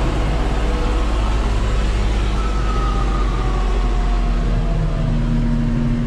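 John Deere tractor engine running steadily, heard from inside the cab, with the PTO-driven roller mill cracking corn on the rear hitch; a faint whine slowly falls in pitch through the middle.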